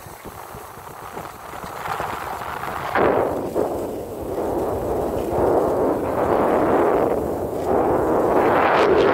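Skis sliding and scraping over groomed snow while skiing downhill, mixed with wind rushing over the microphone. It starts fairly quiet and turns much louder about three seconds in as the run gets going, then swells and eases in uneven surges.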